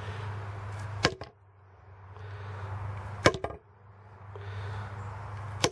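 An 8-pound sledgehammer striking a small metal flashlight three times, about two seconds apart, over a steady low hum.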